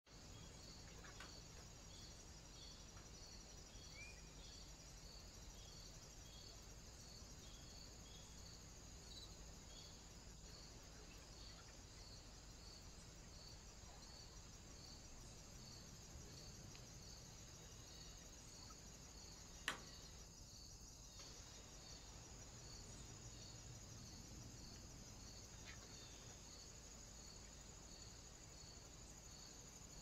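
Faint, steady insect chirping, most likely crickets: a regular high chirp about once a second over a continuous high buzz, with a low steady hum beneath. A single sharp click comes about twenty seconds in.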